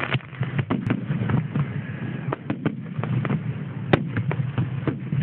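Aerial fireworks shells launching and bursting in quick succession: a string of bangs and crackles, with one sharp, loudest bang about four seconds in, over a steady low rumble.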